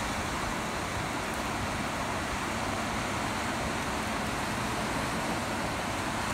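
Steady rush of surf and wind at a beach, an even noise with no distinct knocks or voices.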